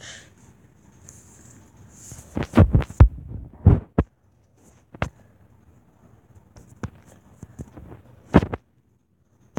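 Fingers tapping and knocking on a tablet's touchscreen as it is handled, picked up as dull thumps over a low hum. A quick run of taps comes about two and a half seconds in, then single knocks every second or two.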